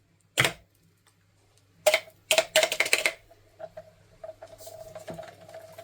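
A novelty exploding-soda popper going off: one sharp pop about half a second in, then a quick flurry of crackling and rattling from about two to three seconds.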